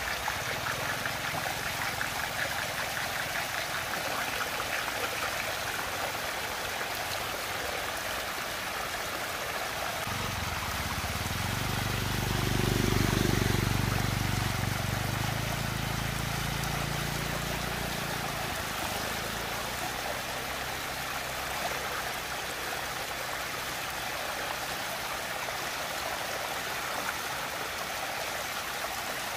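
Water rushing and swirling steadily down a large whirlpool vortex. In the middle a low hum swells up and fades away again.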